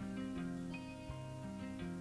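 Quiet background music: a melody of short held notes, changing about every half second.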